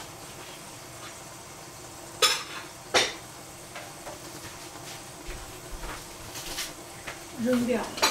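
Greens cooking in a stainless-steel pot on the stove with a soft steady sizzle, broken by two sharp clinks of kitchenware about two and three seconds in and a short voice-like sound near the end.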